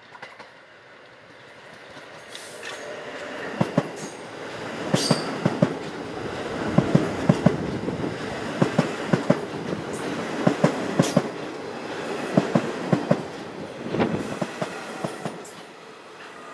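R46 subway train approaching and then rolling past close by, its wheels clacking over the rail joints in quick pairs of sharp knocks. It rises from faint to loud over the first few seconds and eases off a little near the end.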